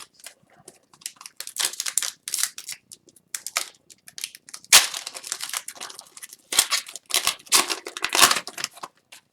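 A pack of Upper Deck Series 1 hockey cards being torn open by hand, the wrapper crinkling and tearing in irregular bursts with a sharper snap about halfway, and the cards rustling as they are handled.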